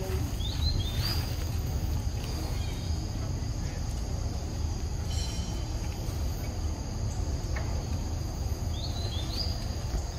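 Steady chorus of insects, with a bird's pair of short rising chirps just after the start and again near the end, over a low rumble.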